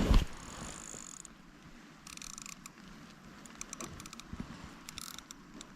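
Fishing reel and tackle as a carp takes the bait. A high buzz stops about a second in, followed by scattered clicks and handling noises.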